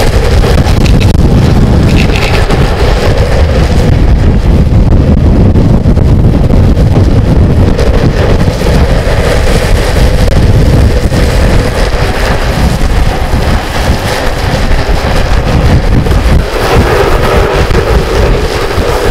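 Heavy wind buffeting on the microphone over the steady rolling noise of longboard wheels on asphalt at downhill speed.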